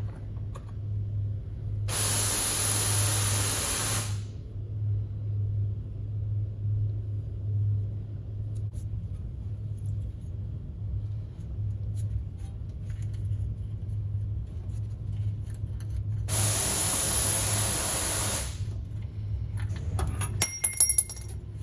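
Two hisses of about two seconds each, with a steady low hum under them, and a few small metallic clinks near the end.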